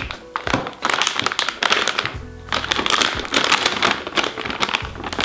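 Crinkling of a plastic anti-static bag as a motherboard is handled and slid out of it, pausing briefly about two seconds in, over background music with a steady beat.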